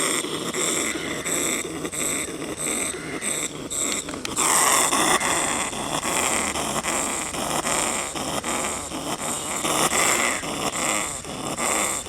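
Brown rat's harsh, rhythmic growling hiss, the sound of an angry, agitated rat caught in a trap. It pulses about one and a half times a second and grows louder and rougher about four seconds in.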